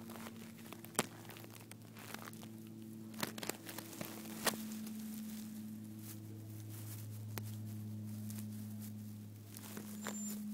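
Cat's paw and grass brushing and tapping against the camera right at the microphone: rustling with a few sharp clicks, over a steady low hum.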